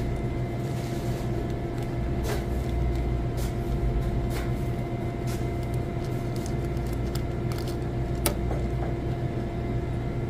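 Steady low machinery hum with a few constant tones over it, and scattered small clicks and taps of roller grill parts being handled, the sharpest click about eight seconds in.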